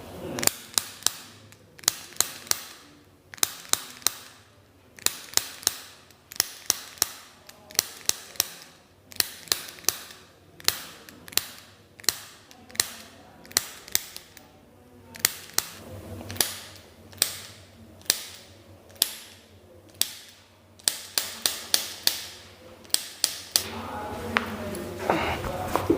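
Sharp cracks and clicks from a chiropractic back adjustment, coming in quick clusters of two to four that repeat about every one to two seconds.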